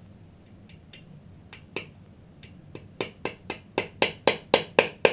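Light hammer taps on a blade being driven into the sealant seam between the Triumph Daytona 675's aluminium crankcase halves. A few scattered sharp taps come first, then from just past halfway a steady run of about four taps a second, growing louder.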